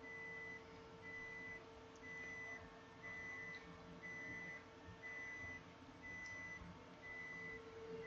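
A faint electronic beep repeating about once a second, each beep about half a second long, over a steady low hum.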